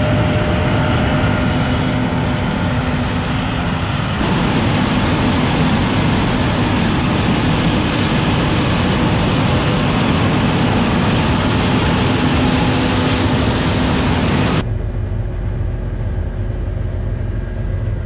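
John Deere S690 combine harvesting corn, heard close up from outside the machine: a loud, steady rushing noise of the running machine and its corn head taking in standing stalks. About fifteen seconds in, it cuts to a quieter, steady engine drone.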